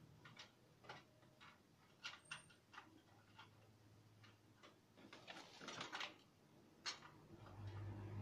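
Faint, irregular clicks and taps of a plastic ring light and its cable being handled while it is being connected to power. A low hum comes in near the end.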